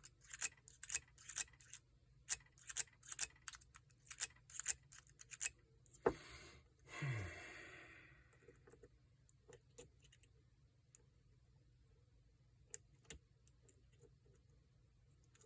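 Steel lock pick and tension wrench clicking and scraping against the pin stack inside a Paclock 90A-PRO padlock's keyway, a dense run of small ticks for about five seconds. About six seconds in comes a sharp knock and a brief low falling sound, after which only a few faint, scattered ticks remain.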